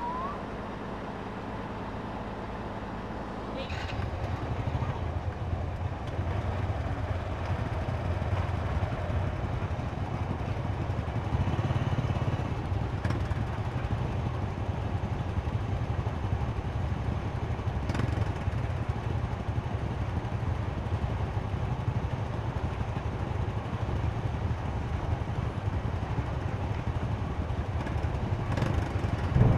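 Engine of a river car ferry running with a steady low drone, stepping up louder about four seconds in.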